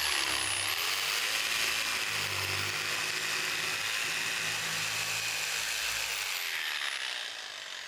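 Corded DeWalt jigsaw cutting a wheel notch into a 3/4-inch panel: the blade runs steadily through the board, then winds down near the end.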